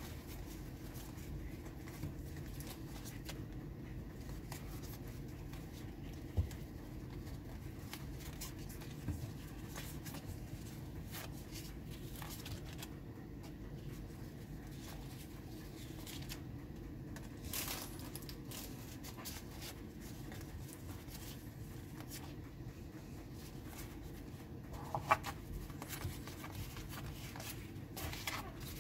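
Cardboard trading cards being flipped through and handled by hand: soft flicks and rubs of card stock, with a few sharper clicks, over a steady low hum.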